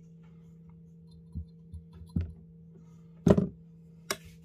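Hand tools and copper wire being handled on a silicone work mat: a few soft knocks, then a louder knock about three seconds in as a pair of pliers is set down, and a sharp click shortly after. A steady low hum runs underneath.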